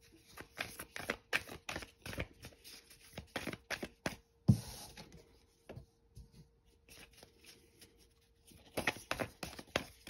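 A deck of tarot cards being shuffled by hand: a quick run of card flaps and clicks, with one louder knock about four and a half seconds in. After the knock it goes quieter with only a few faint clicks, and the shuffling picks up again near the end.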